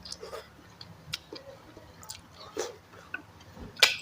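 Close-up eating sounds from a bowl of instant noodles with pork balls and boiled egg: wet chewing and mouth smacks with scattered short clicks, and one louder sharp burst near the end.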